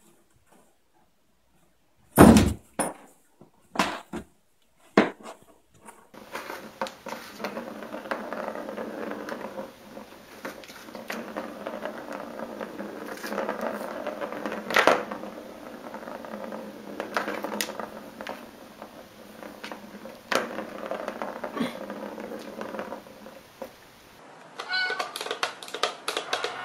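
Cats playing with toys: a few sharp knocks in the first seconds, then a long steady noise with scattered clicks, and cat meowing.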